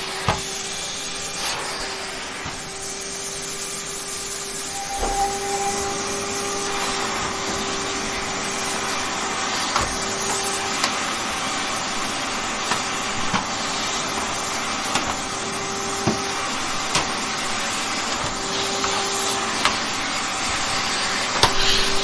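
Vacuum cleaner running steadily with a constant motor hum and rushing air, with a few scattered clicks and knocks.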